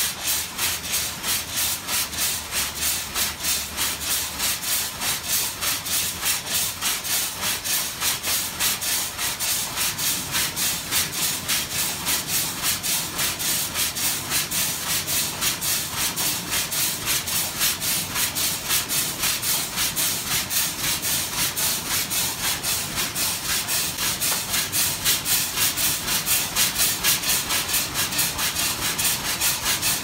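Steam traction engine running, its exhaust chuffing in a steady, even beat with a hiss of steam between the beats.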